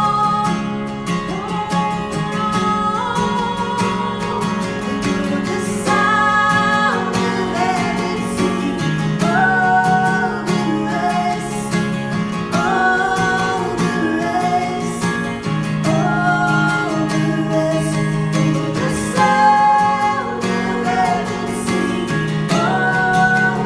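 Worship song: acoustic guitar strumming chords under a singing voice holding long notes.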